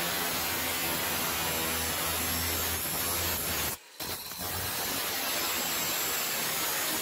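Angle grinder with a thin cut-off disc cutting through stainless steel plate: a steady harsh grinding over the motor's hum. The sound drops out briefly about four seconds in, then the cutting resumes.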